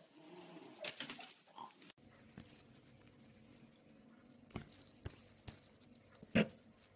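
Short calls from a pet animal, the loudest a single brief call about six and a half seconds in, with a few light taps around it.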